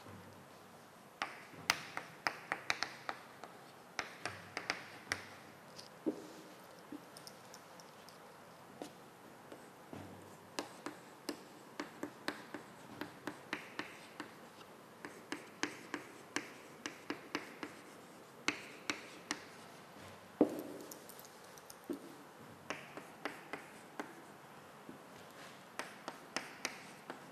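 Chalk writing on a blackboard: irregular sharp taps and short scratches in clusters, with brief pauses between strokes.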